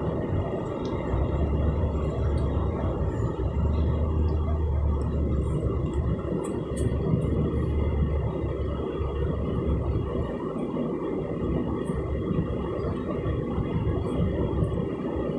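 Steady road and engine noise inside the cabin of a moving car, with a deep rumble that is heaviest in the first half and eases off after about ten seconds.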